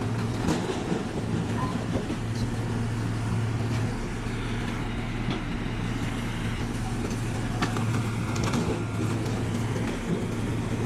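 Binderberger 40-ton hydraulic log splitter's power unit running with a steady hum, and a few short knocks of split wood being handled.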